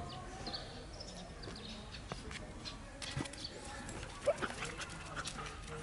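Two dogs, a toy poodle and a large fluffy dog, playing, with a short yip about four seconds in and scattered small scuffing clicks; birds chirp in the background.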